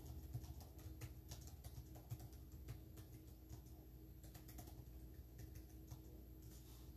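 Faint typing: irregular soft key clicks, several a second, over a low steady room hum.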